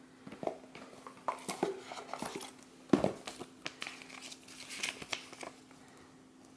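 Paper and cardboard being handled: a folded paper user manual lifted out of its cardboard box and unfolded, with rustling and light taps and a sharper knock about three seconds in.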